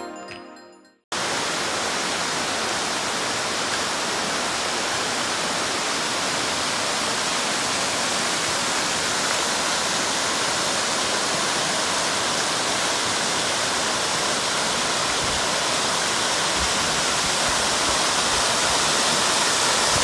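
A spring-fed waterfall, a steady, even rush of water pouring over a rock face. It starts about a second in, after a short musical jingle fades out.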